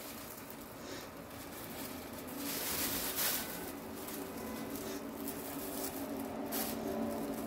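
Plastic baking sleeve crinkling and rustling as hands twist it and tie it off with cotton string around a log of chicken sausage meat, in a few short rustles.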